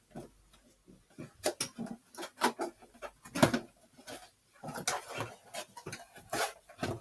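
A package being opened by hand: irregular rustling, tearing and knocking of the packaging, in short bursts.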